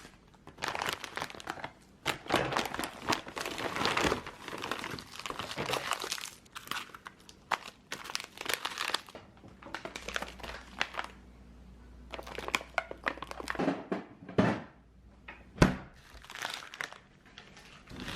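Crinkling and rustling handling noises, dense at first and then thinning out into scattered sharp clicks and knocks, one loud click near the end.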